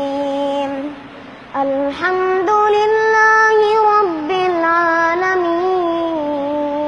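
A child's voice chanting Quran recitation in long, ornamented held notes. There is a short breath pause about a second in, then the voice climbs higher for a couple of seconds and settles back to the lower note.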